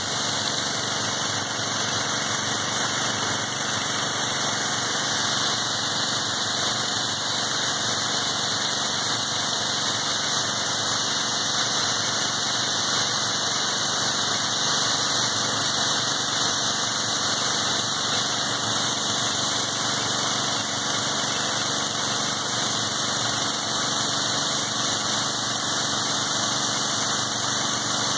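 Karcher HDS 801B petrol-engined hot-water pressure washer running steadily in hot mode, its engine and pump humming under the constant hiss of the spray jet.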